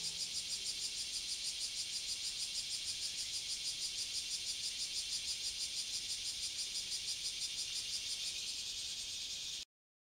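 Insects trilling in a steady high-pitched pulsing chorus, about six pulses a second, which cuts off suddenly near the end.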